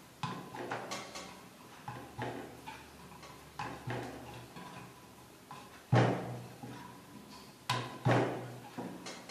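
Wooden rolling pin and round wooden board (belan and chakla) knocking and thudding against the counter as poori dough is rolled out: irregular knocks about one or two a second, loudest about six seconds in and again just before eight seconds.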